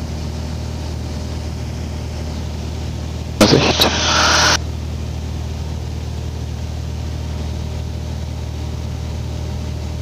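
Steady drone of a Mooney's piston engine and propeller heard in the cabin through the headset intercom. About three and a half seconds in, a loud burst of noise lasts about a second.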